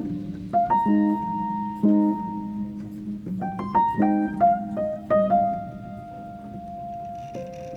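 Background music: piano chords and notes, struck and left to ring, with a long held note near the end.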